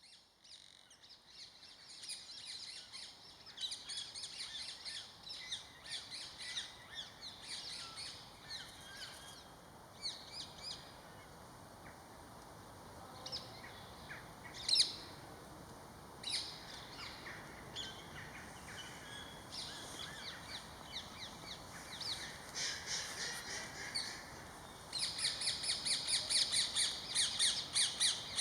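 Small birds chirping and twittering: many short, high calls in quick runs, with a denser, louder run of chirps near the end.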